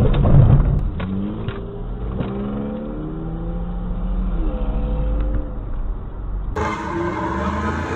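Car engine accelerating hard, its pitch rising in steps as it shifts up through the gears, after a loud low thump at the start. About six and a half seconds in, a different, louder engine takes over, revving.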